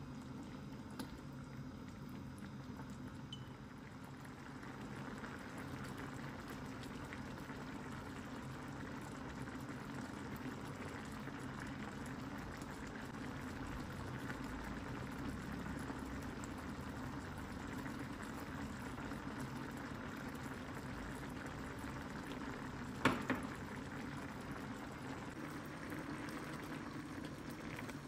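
Stew of meat and spinach roots simmering in an enamelled cast-iron pan: a steady bubbling. Once, a few seconds before the end, a single sharp knock.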